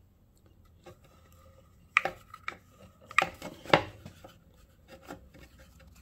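A few sharp clicks and knocks of hands working the control lever and linkage on a 5 hp Briggs & Stratton engine, loudest about two seconds in and again three to four seconds in, with quieter stretches between.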